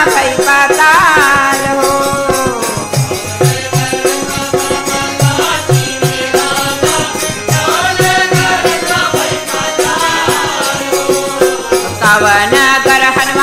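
Recording of a North Indian wedding folk song (vivah lokgeet): a bending, ornamented melody over a steady drum beat, with a rattling shaker keeping time.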